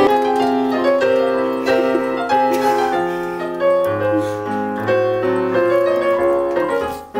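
Piano playing a slow melody over held chords and a stepping bass line.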